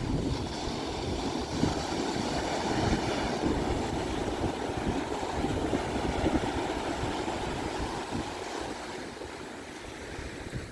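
Ocean surf washing onto a sandy beach, with wind buffeting the microphone in a low, gusty rumble. The wash is strongest in the first few seconds and slowly eases toward the end.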